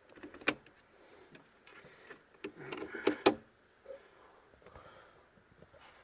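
Test-lead clips being handled and clamped onto a car battery's terminals: a few sharp clicks, the loudest about half a second and a little over three seconds in, with light rattling and rustling between.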